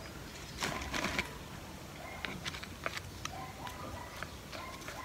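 Light, irregular clicks and rustles of hands dropping and pressing bark-chip mulch onto the potting soil of a houseplant pot, with a small cluster of clicks about a second in.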